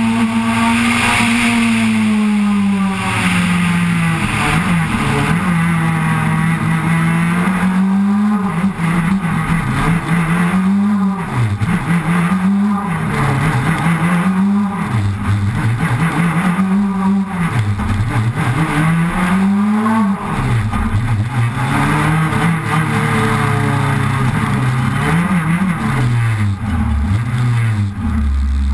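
Proton Super 2000 rally car's two-litre naturally aspirated four-cylinder engine heard onboard under hard driving, its pitch climbing and then dropping sharply again and again through gear changes and braking for corners. Near the end the engine falls to a low pitch as the car slows.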